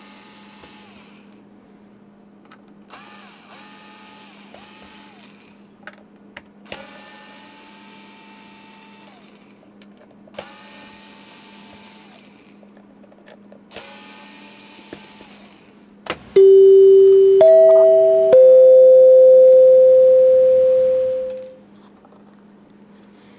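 Small electric screwdriver running in five short bursts of one to two seconds each, spinning up and holding a steady whine as it backs out the screws of a device's back lid, over a steady low hum. About sixteen seconds in come three loud held electronic tones, each at a different pitch, the last fading out.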